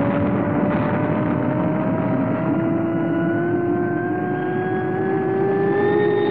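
Rocket engine sound effect for the Fireball XL5 spaceship taking off on its launch sled: a steady roar with a whine that rises slowly in pitch as it gathers speed.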